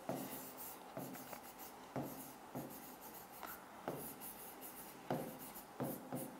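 Handwriting on a board: faint scratches and taps of the pen tip, a couple of short strokes a second, forming words.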